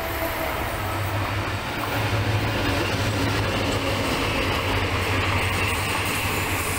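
Diesel-hauled passenger train running past close by: a steady low diesel engine hum under the rushing noise of the wheels on the rails. A thin high wheel squeal builds in the second half.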